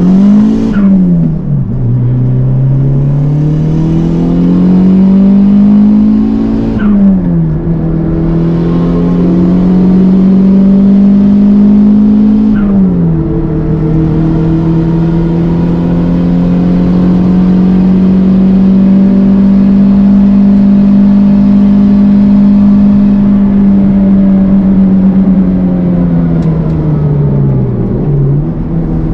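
Toyota Starlet Glanza V's turbocharged 1.3-litre four-cylinder engine at full throttle, climbing through the gears with upshifts about one, seven and thirteen seconds in, then holding steady high revs. Near the end the revs dip briefly and pick up again.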